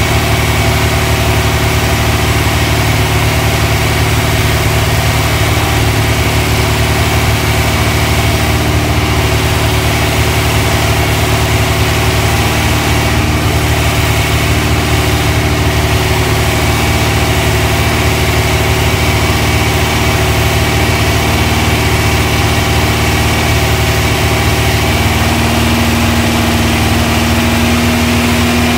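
Air-cooled VW Type 1 flat-four, built as a 2054 cc stroker, running steadily on an engine stand during its cam break-in run. Its pitch rises a little near the end.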